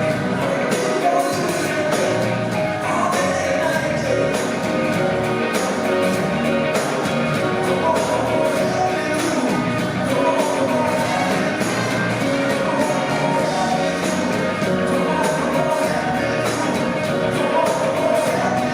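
Live rock band playing with singing over a steady drum beat.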